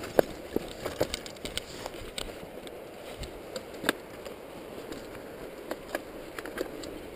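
Mountain bike riding fast down a dirt forest trail: a steady rushing noise of tyres on dirt, broken by frequent sharp rattles and knocks from the bike over bumps and stones, the loudest knock about four seconds in.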